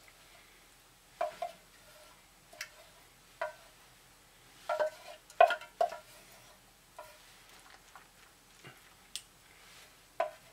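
A spoon clinking and scraping against a metal pie pan and cup as chicken-and-mushroom sauce is dished onto rice: irregular short clinks with a brief ring, the busiest and loudest about five to six seconds in.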